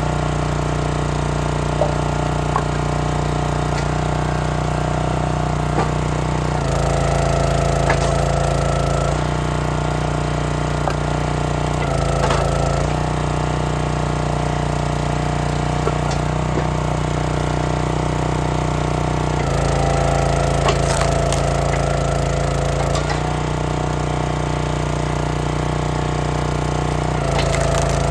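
Small gas engine of a hydraulic log splitter running steadily, its note shifting for a few seconds at a time as the ram works, with sharp cracks and splintering of cherry wood being split.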